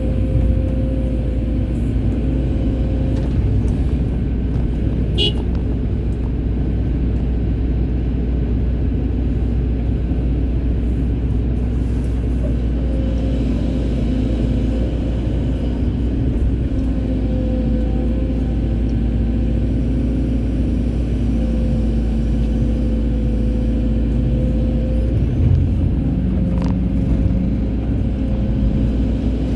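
Excavator's diesel engine running steadily, a low drone with a steady hum over it. A brief high chirp sounds about five seconds in.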